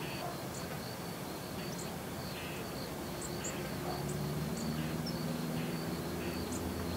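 Insects chirping in a steady, evenly pulsing high trill over a background hiss, with a few brief, faint high chirps. A low steady hum joins about three seconds in.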